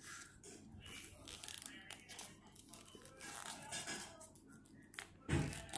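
A sheet of origami paper is folded and creased by hand, giving soft, irregular crinkling and crackling. A louder thump comes near the end.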